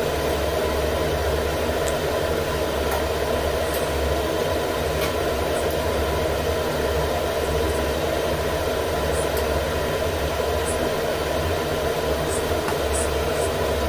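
Steady whirring hum of a running fan, with a few faint clicks and knocks as a metal rice-cooker pot is handled.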